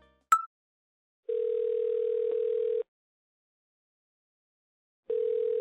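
Telephone ringing tone as heard by the caller: a steady, slightly beating tone about a second and a half long, then silence, then the next ring starting near the end. A short blip comes just before the first ring.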